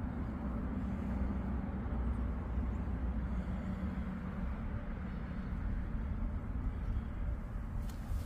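A car engine idling with a steady low rumble; a few sharp clicks come near the end.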